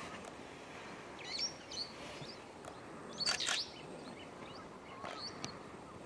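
Meyer's parrots calling with short high-pitched chirps: a few between one and two seconds in, a loud harsh squawk about three seconds in, and another call near five seconds. Steady background noise runs underneath.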